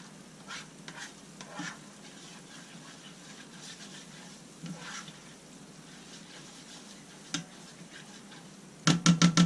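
Flour roux being stirred in a frying pan, with a faint sizzle and the occasional scrape of the utensil. Near the end comes a quick run of loud knocks.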